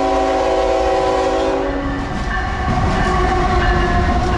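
A CSX freight diesel locomotive's multi-chime air horn holding a chord that cuts off about two seconds in, over the low rumble of the locomotive as it rolls past close by.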